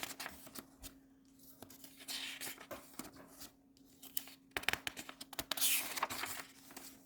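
Paper worksheets being handled on a table: irregular rustling, sliding and light tapping of sheets, with the loudest swishes about two and a half and six seconds in. A faint steady hum runs underneath.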